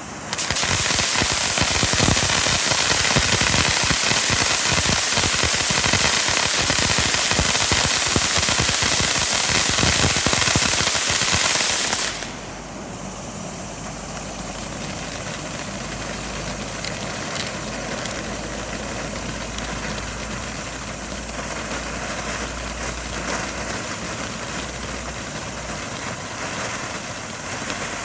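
Black Cat Xplode Energy firework fountain burning: a loud, steady hiss for about twelve seconds drops suddenly to a quieter hiss with scattered crackles and pops as the sparks spray.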